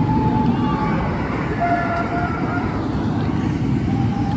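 Suspended steel roller coaster train rumbling along its track, with a few short high squeals over the rumble.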